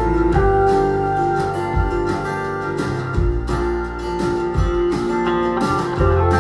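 An acoustic folk track played through a pair of B&W Vision series bookshelf loudspeakers and picked up in the room: plucked notes and held tones over a deep bass line.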